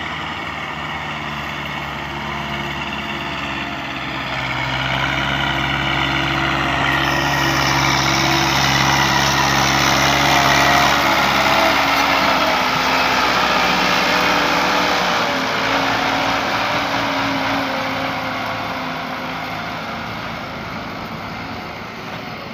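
Massey Ferguson 265 tractor's three-cylinder diesel engine working under load as it pulls a heavily loaded trolley of soil past. It grows louder as it approaches, is loudest a little before the middle, then its pitch drops and it fades as it draws away.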